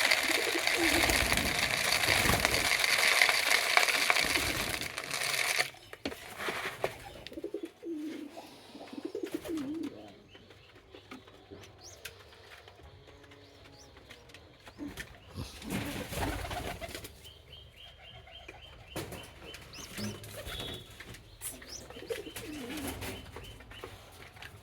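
Pigeons cooing in low, wavering coos, with a loud rushing noise over the first five or so seconds.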